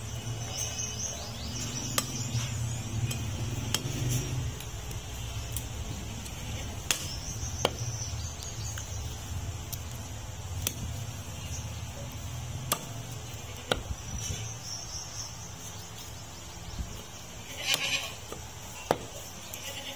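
Butcher's cleaver chopping goat meat and bone on a wooden log block: about ten sharp single knocks spaced one to three seconds apart. A steady low hum and high chirping run underneath.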